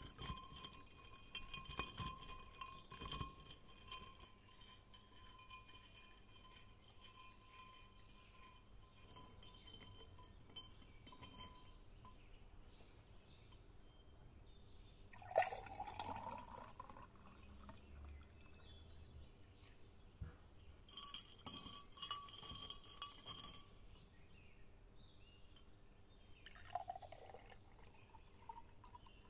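Ice and glass clinking faintly in a cut-glass pitcher of chia-seed syrup, with a ringing glass note. Later comes a sharp knock of glass on the table, then the syrup glugs out as it is poured into tumblers, among more light clinks.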